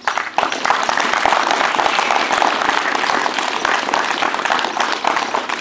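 Audience applauding with many hands clapping at once, starting abruptly and easing off slightly near the end.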